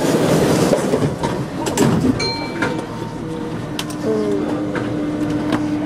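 Paris Métro line 8 train standing at the platform: clatter and scattered clicks in the first two seconds, then a steady electrical hum from about three seconds in, with short gliding whines over it, as the train gets ready to move off.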